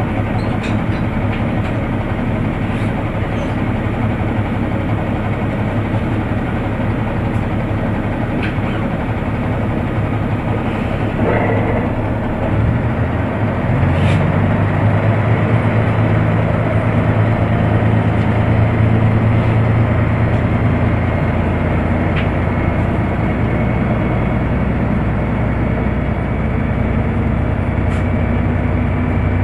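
KiHa 100 series diesel railcar's engine idling while the train stands, then opening up about twelve to fourteen seconds in and running louder under load as the train pulls away and gathers speed.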